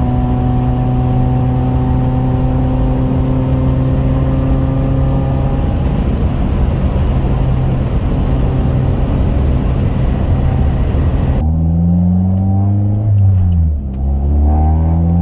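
Honda F23A inline-four engine running steadily under way, with road noise. About three quarters of the way through there is an abrupt cut, after which the engine note dips and then climbs again.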